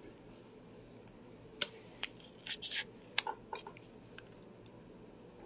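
Small pull-tab tin of tuna salad being opened: several sharp metallic clicks and snaps with a short scrape in the middle as the lid is pried up and peeled off.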